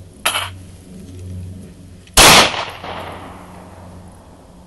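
A single shot from a .40 S&W Glock pistol about two seconds in, its report fading out over about a second. The pistol is fired with no magazine inserted, a single chambered round, so the spent casing drops straight down. A shorter, fainter sharp sound comes just after the start.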